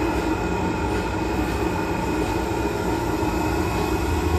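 Steady drone of running electronics-assembly machinery and its compressed-air supply: a low rumble with several steady tones, unchanging throughout.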